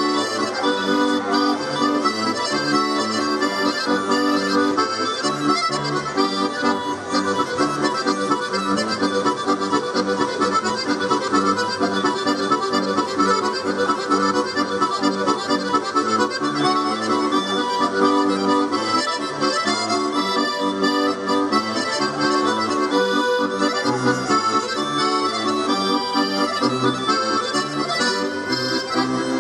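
Accordion playing a tune: a melody of held chords over short, repeated bass notes.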